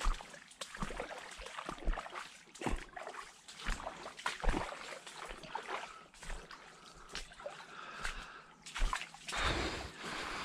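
A hooked salmon splashing and swirling at the river's surface while being played near the bank, with irregular sharp knocks and clicks throughout and a longer splash near the end.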